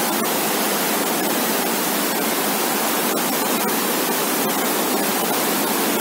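Muddy monsoon floodwater rushing in rapids over sandstone ledges: a steady, unbroken rush of water.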